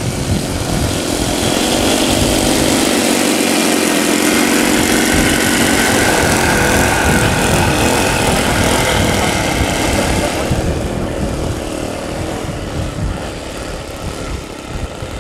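Engines of a large radio-controlled scale model Nakajima J1N Gekko twin-engine airplane running steadily on the ground with a buzzing drone. About ten seconds in the sound drops and thins as the model moves away down the runway.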